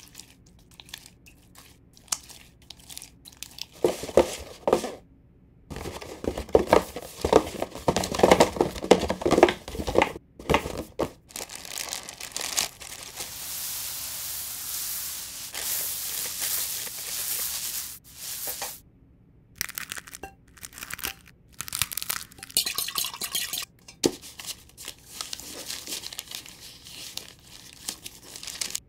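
A hand squishing and kneading a minced fish mixture in a bowl with dense, irregular wet crunches. Then a steady hiss of dry breadcrumbs poured in a stream onto a pile for several seconds, followed by scattered crinkling of parchment paper being handled.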